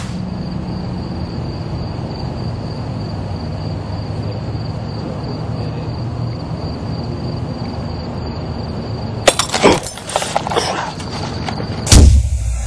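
A steady low hum with a faint high whine. About nine seconds in, a quick run of sharp cracks and thuds breaks in, and a single loud hit comes near the end.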